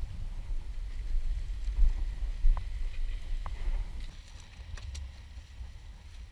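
Wind buffeting the action-camera microphone, a gusty low rumble that eases after about four seconds. A few light clicks and rustles of bags and gear being handled.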